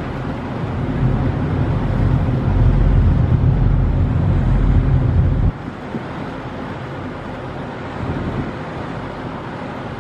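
Steady low rumble with wind noise on the microphone, as heard aboard a moving boat. A heavier low rumble swells from about a second in and cuts off suddenly about halfway through.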